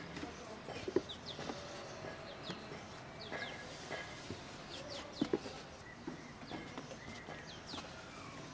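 Small birds chirping in short, quick falling calls, scattered throughout, with two soft knocks, about a second in and again past halfway, as dough is pressed on a floured wooden board.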